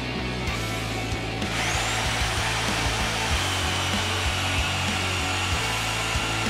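Portable band saw running and cutting through rectangular steel tube. About a second and a half in, the blade bites into the metal and a steady high whine sets in over the motor hum.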